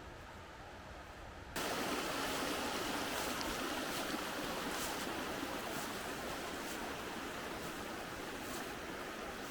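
Running water, a creek or cascade rushing steadily, which cuts in suddenly about a second and a half in.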